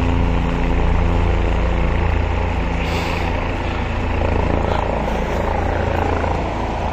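Helicopter flying over the valley: a steady, low engine-and-rotor drone, with a humming tone that fades out within the first couple of seconds.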